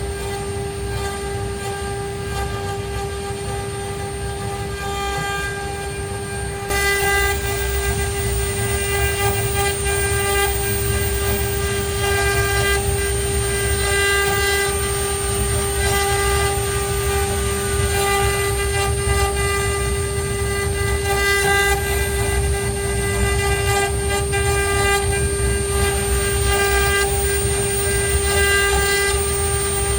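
ART1325 CNC router running with a steady whine made of several constant tones; it gets louder about seven seconds in and holds there.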